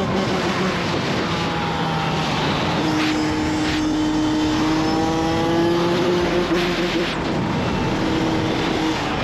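2018 Kawasaki KX100's small two-stroke single-cylinder engine running under way, its note climbing slowly, then dipping briefly about seven seconds in before picking up again, with wind rush over the microphone.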